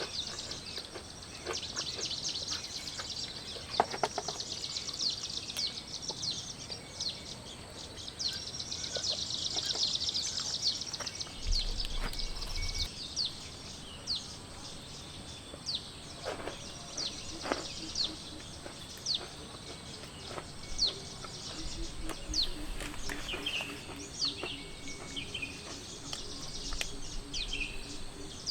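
Birds chirping outdoors with many short, quick high calls repeated throughout, over a light background hiss and a few sharp taps.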